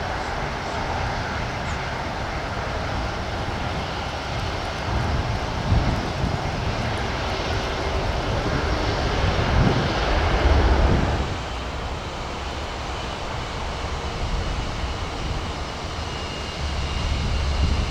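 Airliner's jet engines running near the airfield: a steady rush and low rumble that builds to its loudest about ten seconds in, then falls off sharply a second later.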